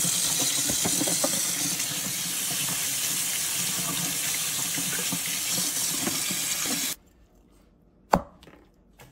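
Cold tap water running into a stainless steel sink and splashing over lobster pieces being rinsed by hand. The water cuts off suddenly about seven seconds in, and a second later comes a single sharp knock.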